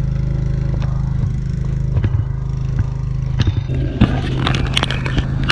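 A machine's engine running nearby with a steady low drone. From about three and a half seconds in, scraping and clicking footsteps through grass lie on top of it.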